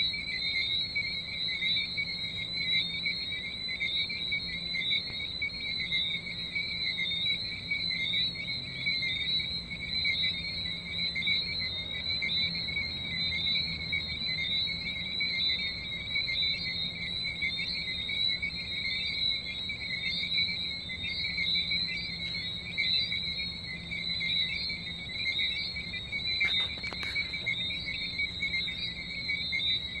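Dense chorus of tree frogs, many overlapping high chirping calls at two steady pitches, without a pause.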